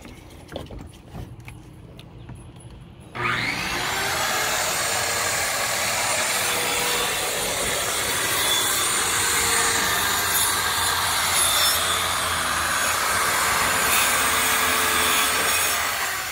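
Corded circular saw starting up about three seconds in, its motor speeding up, then cutting steadily through a Trex composite deck board for about thirteen seconds before easing off near the end. A few light knocks come before it starts.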